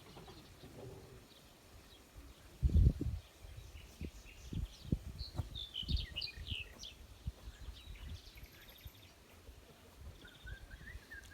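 Small birds chirping in short high calls, over a series of dull low thumps, the loudest about three seconds in.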